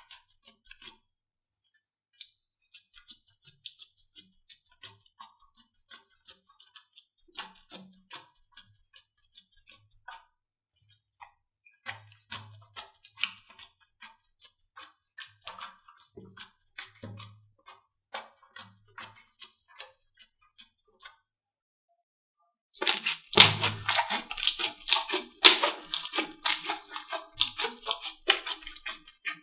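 Slime being pressed and squeezed by hand: scattered sticky clicks and small pops, then, after a brief silence, a dense run of much louder crackling near the end.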